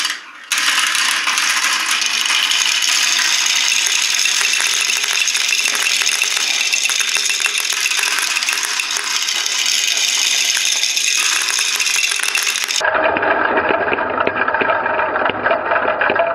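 A stream of many small plastic balls clattering down the plastic tubes of a Kumon Kumikumi Slope marble run and dropping into a bucket already full of balls, a dense continuous rattle starting about half a second in. Near the end the sound abruptly turns duller.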